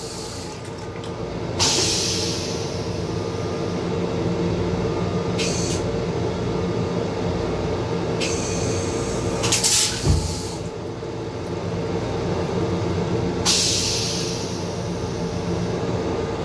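Metro-North M7 railcar toilet going through its flush cycle: five short hisses of rinse water and air spray into the bowl over the steady hum of the train car. A low thunk about ten seconds in is the bowl's bottom valve closing.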